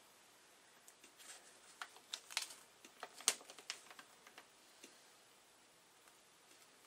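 A folded paper instruction sheet being handled, giving faint crinkles and small ticks that bunch together in the middle and then thin out.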